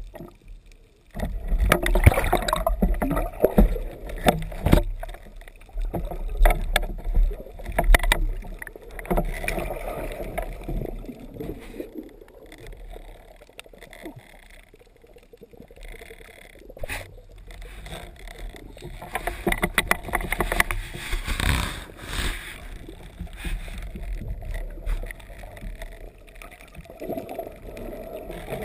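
Water sloshing and gurgling around a spearfisher's camera at the surface, then the muffled rumble of being underwater, with scattered knocks.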